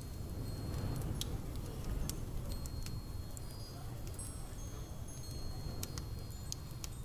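Layered room ambience: a steady low rumble under scattered light clicks and brief high tinkling tones at several pitches, like small chimes.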